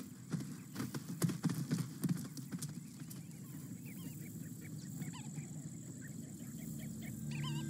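Oryx hooves knocking and clattering on hard ground as the animals jostle, a quick run of sharp knocks in the first couple of seconds. It is followed by scattered short bird chirps.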